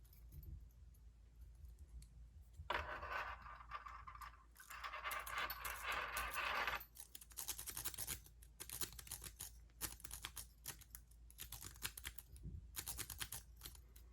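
Small metal lock-picking tools and a padlock being handled: a scraping rustle for about four seconds, then a run of quick, light metallic clicks.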